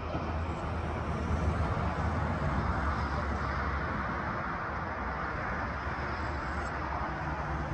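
Steady vehicle rumble with a low hum, swelling a little between about one and four seconds in.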